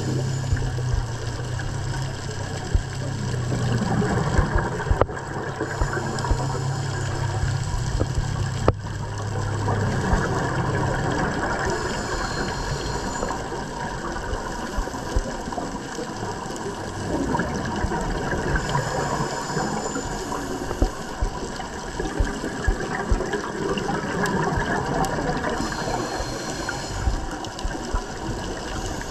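Underwater sound of a scuba diver breathing through a regulator: a hiss on each breath about every six to seven seconds, with bubbling and gurgling between the breaths and scattered small clicks and pops. A steady low hum runs underneath and stops about eleven seconds in.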